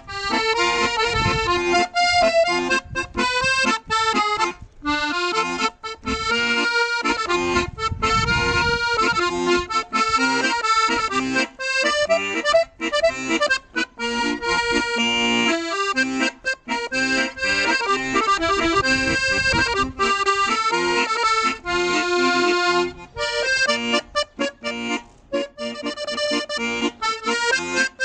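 Borsini piano accordion played solo, a steady run of changing notes with a few brief breaks between phrases.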